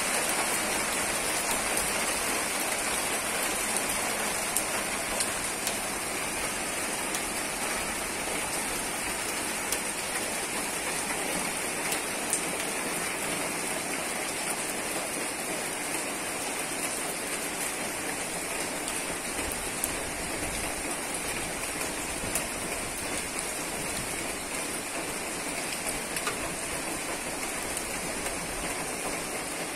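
Heavy rain pouring steadily onto pavement and surfaces, with scattered louder drop impacts.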